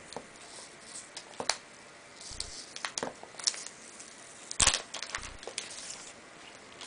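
Wrapping being peeled off a small boxed iPod Touch by hand: scattered crinkles and light clicks, with one sharper crack a little past the middle.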